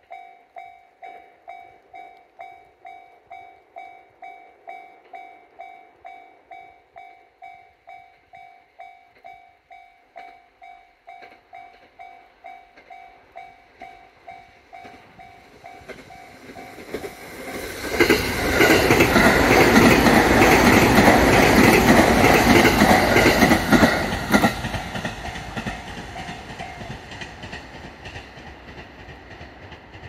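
A Japanese level-crossing's electronic warning bell ringing steadily, about two dings a second. About halfway through, a JR Narita Line train approaches and passes loudly for about six seconds, wheels clattering over the rail joints, then fades away as the bell dies out near the end.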